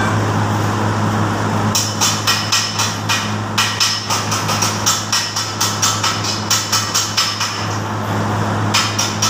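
Stick-welding arc on the steel trolley frame, crackling in rapid, irregular pops from about two seconds in; it breaks off for about a second near the end and strikes again. A steady low hum runs underneath.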